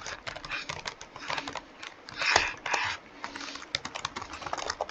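Typing on a computer keyboard: quick, irregular runs of key clicks, with a denser flurry a little past the middle.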